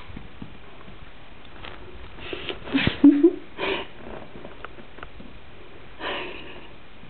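Dog sniffing with its nose close in, in a cluster of quick sniffs about two and a half to four seconds in and another short sniff near the end.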